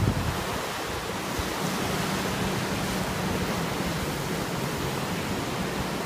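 Surf from a rough, choppy sea breaking and washing up a sandy beach in a steady wash, with wind blowing across the microphone.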